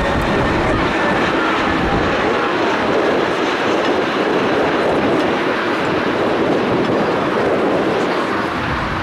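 Airbus A321neo airliner on final approach with its landing gear down: a steady, loud rush of jet engine and airframe noise.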